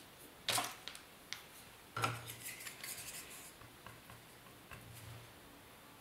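Hand tools and a flat brush handled on a hard work board: a sharp clink about half a second in, then a run of clinks and scrapes from about two seconds, fading to light ticks.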